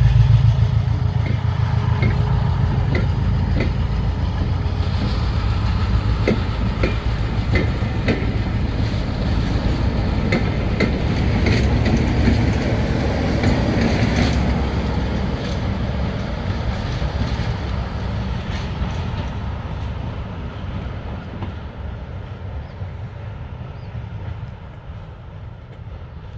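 Diesel-hauled passenger train passing, with a Class 47 locomotive at one end: a low diesel engine drone is loudest at first, the coach wheels click over the rail joints in the middle, and the sound fades as the train draws away.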